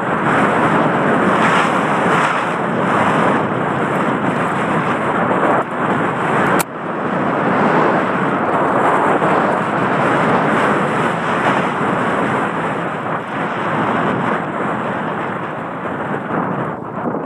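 Steady rush of wind noise on a helmet-mounted camera's microphone, mixed with trail rumble, during a fast mountain-bike descent on a dry dirt trail. A single sharp click comes about six and a half seconds in.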